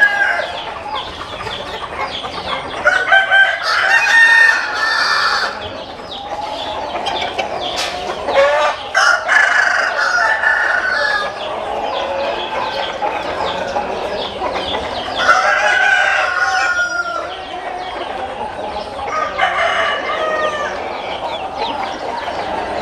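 Roosters crowing one after another, about four long crows, over the constant clucking and calling of a flock of chickens.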